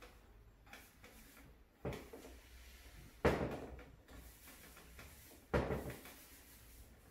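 Small paint roller rolling chalk paint back and forth across the top of a wooden drawer, in three strokes that each start sharply and fade, the middle one loudest.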